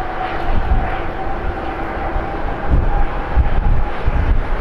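Jet engines of a Boeing 787-9 Dreamliner, GE GEnx-1B turbofans, running on the runway as it rolls toward takeoff: a steady whine over a dense roar. Uneven low rumbles rise and fall through it, strongest about three to four seconds in.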